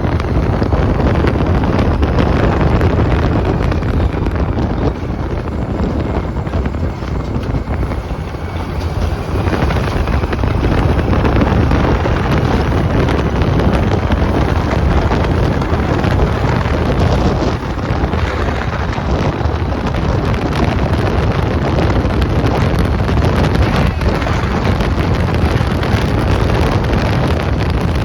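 Wind rushing over the microphone with the rumble of a Test Track ride vehicle running at speed, and a faint whine rising in pitch over the first ten seconds or so.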